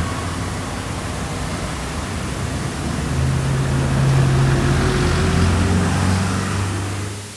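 Road traffic: vehicle engines running low under a steady wash of road noise, growing louder in the middle as a vehicle comes close, then cutting off abruptly at the very end.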